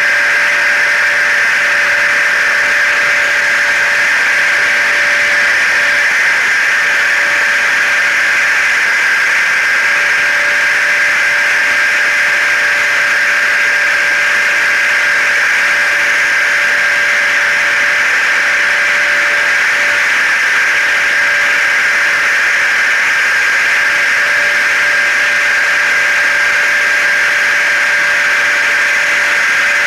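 Layered hair dryer, vacuum cleaner and car noise mixed into a steady white-noise track: an unchanging whoosh with a high whine held throughout.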